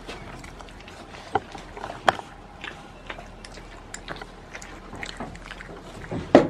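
A goat biting into and chewing a piece of hand-fed food, with irregular short crunching clicks. A louder short noise comes near the end.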